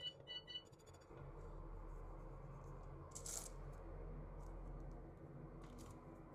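Faint sprinkling of shredded cheese onto pies on a foil-lined baking tray, with a brief rustle about three seconds in and a few light clicks near the end, over a low steady hum.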